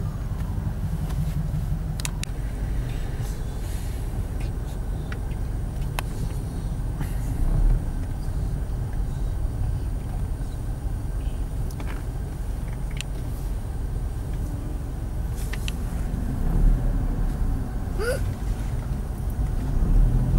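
Steady low rumble of car engine and road noise heard from inside a car creeping through traffic, with a few light clicks scattered through it.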